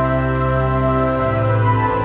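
Background music of long held chords, the bass and chord changing a little over a second in.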